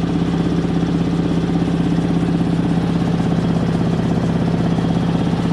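Ingersoll Rand two-stage air compressor running steadily, a constant hum with a fast even pulsing, as it pumps up its tank.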